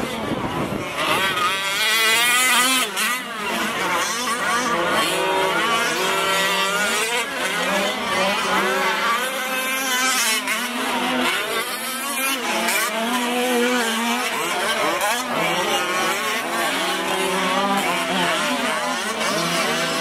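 Several 1/5-scale gas RC trucks such as the Losi 5T race at once, their small two-stroke engines revving up and down in constant overlapping rises and falls as they take the jumps and corners.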